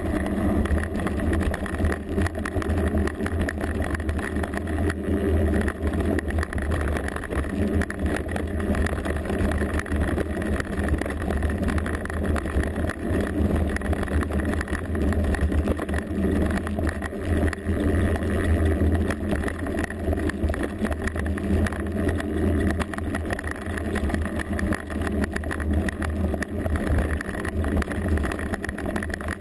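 Mountain bike riding down a rough trail, heard from a rear-mounted GoPro: a steady, loud rumble with constant rattling clicks from the bike and camera mount jolting over the ground.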